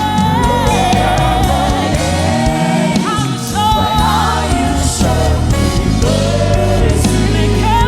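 Live gospel worship music: singers holding long sung lines over keyboard and bass, with a steady beat.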